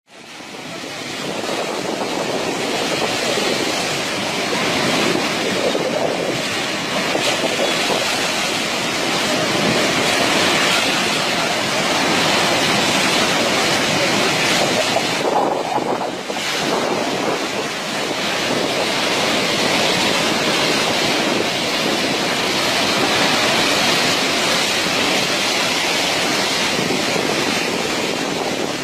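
Steady rush of a swollen river in flood, a dense unbroken water noise, with wind buffeting the microphone; it dips briefly about halfway through.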